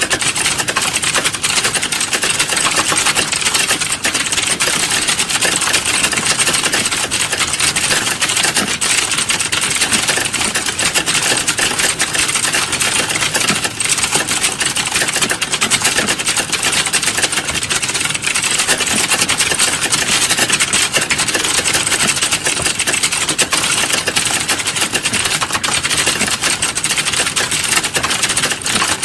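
Fast, continuous computer keyboard typing: keys clicking in a dense, unbroken stream with no pauses.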